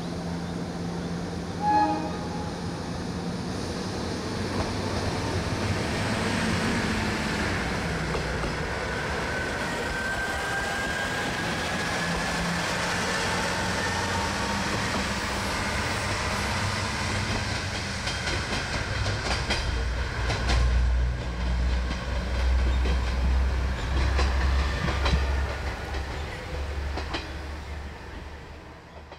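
A Noto Railway diesel railcar running through the station. It gives a short horn toot about two seconds in, then runs with the noise of engine and wheels and a thin squeal from the wheels near the middle. In the second half a heavier low rumble comes in with wheel clicks over the rail joints, and the sound fades away at the very end.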